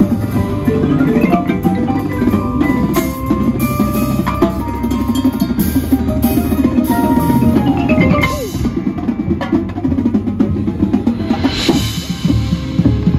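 Indoor percussion ensemble playing: marimbas and other mallet keyboards over drum kit, bass drums and cymbals, dense and loud. A short falling glide in pitch cuts through about eight seconds in.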